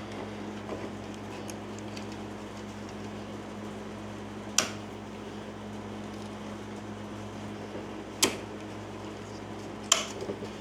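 Three sharp metallic snaps several seconds apart as vise grips slip off the head of a seized screw, over a steady low hum.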